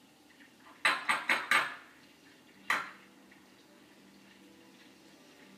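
An egg knocked against a glass bowl to crack its shell: four quick taps about a second in, then one more a little later.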